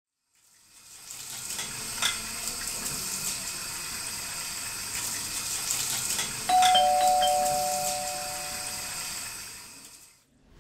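Two-note ding-dong doorbell chime rings once about six and a half seconds in, a higher note then a lower one, fading out over about two seconds. Under it are kitchen sounds, a steady hiss with clinks of dishes and utensils.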